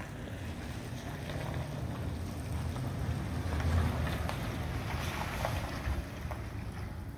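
Wind rumbling on the microphone, with a pickup truck running slowly on an icy street in the distance.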